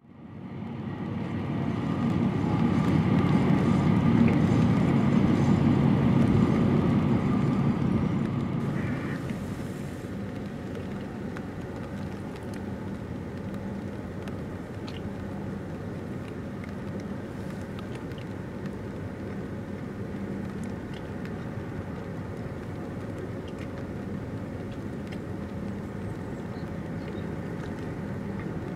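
Low, steady engine drone of a large RoRo cargo ship and its escorting tug under way on the river. It fades in, is loudest for the first eight seconds or so, then settles into a quieter, even hum.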